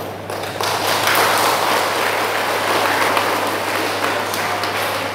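A congregation clapping, swelling in about half a second in and carrying on steadily, with a steady low hum underneath.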